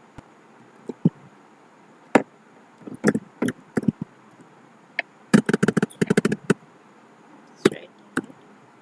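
Computer keyboard typing: scattered single keystrokes, with a quick run of rapid key presses about halfway through.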